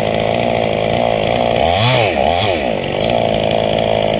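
Chainsaw running under load as it cuts through a timber log, a steady engine hum whose pitch dips and recovers twice about two seconds in.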